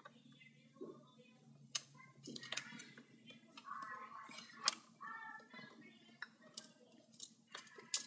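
Scattered light clicks and ticks of a RAM memory module being handled and pressed into a 27-inch iMac's memory slot, plastic and metal knocking against the slot.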